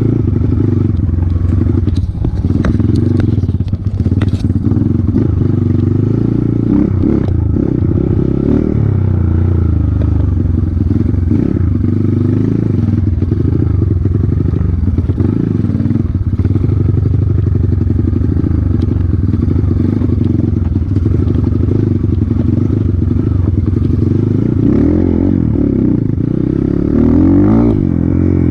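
Off-road motorcycle engines running at low revs, their pitch shifting up and down. Scattered clicks and knocks come through in the first several seconds, and an engine revs up near the end.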